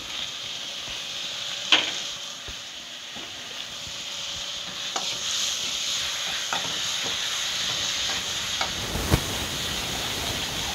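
Chopped onions sizzling in oil in a metal kadai while a steel ladle stirs them, with a few sharp clicks and scrapes of the ladle against the pan.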